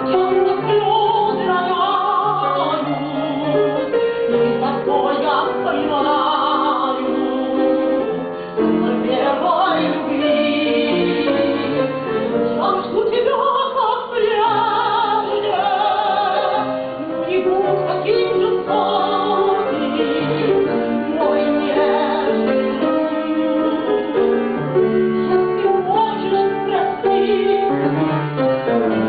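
A female vocalist sings a tango in a classical, operatic style with vibrato, accompanied by piano.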